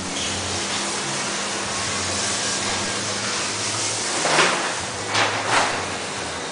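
Steady workshop hiss with a low hum under it, broken by three short rushing swishes between about four and five and a half seconds in.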